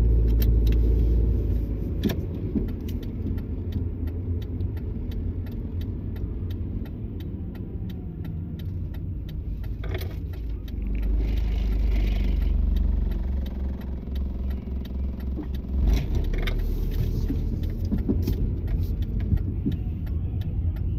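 Car driving, heard from inside the cabin: a steady low engine and road rumble with small clicks and rattles throughout. The rumble eases after the first second and swells for a couple of seconds near the middle as the car goes round a roundabout.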